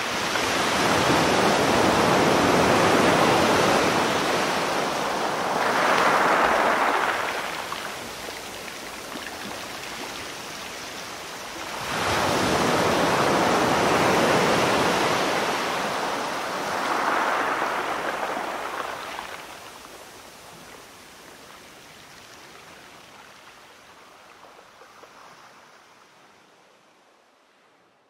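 Sea waves washing in, two long surges a few seconds apart, then fading away near the end.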